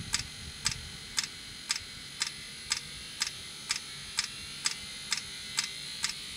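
Fuel dosing pump of a 2016 Mercedes Sprinter's diesel-fired auxiliary block heater clicking evenly, about two clicks a second, over a steady hiss as the heater starts up.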